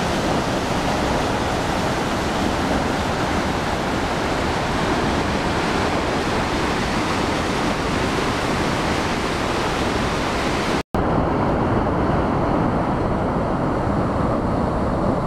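Nevada Fall's whitewater rushing down, a loud, steady roar of falling water. A short dropout about eleven seconds in, after which the roar sounds duller.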